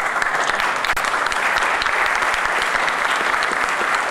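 Audience applauding steadily, a dense sustained clapping from a large crowd.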